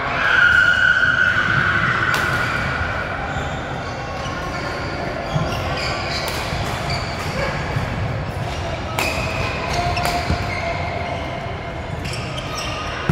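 Badminton doubles play in a large echoing gym hall: sharp racket-on-shuttlecock hits at irregular intervals, a few seconds apart, with short high squeaks over a steady hall rumble.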